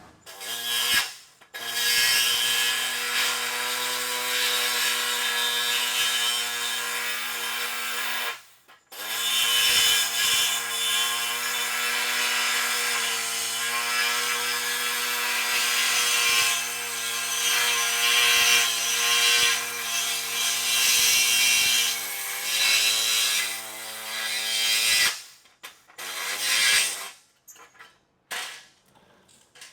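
Body saw cutting sheet metal: the saw runs steadily for several seconds, stops briefly, then cuts again for a long stretch, finishing with a few short bursts.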